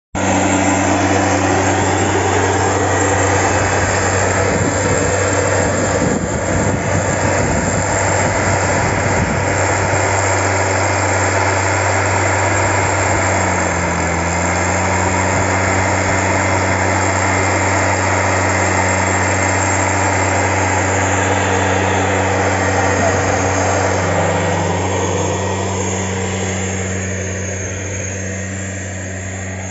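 Stihl SR 420 backpack power sprayer's two-stroke engine running steadily at a constant speed, dropping a little in loudness near the end.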